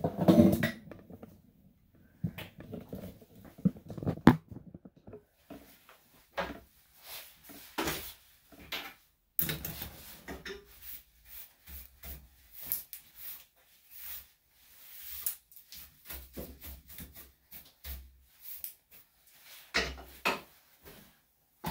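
Handling noises: scattered knocks, clicks and rubbing as things are moved about on a grooming table, with a sharp knock about four seconds in.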